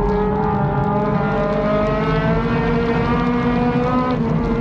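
Race car engine heard from inside the cockpit under power, its pitch climbing steadily as the revs build, then dropping about four seconds in as the revs fall away.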